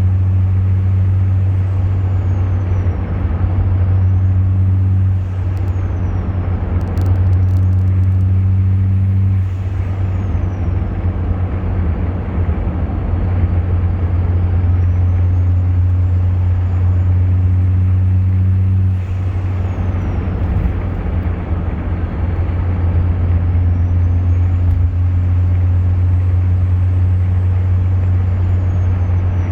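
Cummins turbo-diesel engine running with its turbocharger whistling. The high whistle rises and falls slowly about six times, each swell lasting a few seconds, over a steady deep engine drone.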